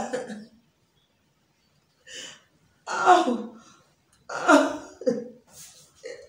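A person coughing hard, about five loud voiced coughs spaced roughly a second apart.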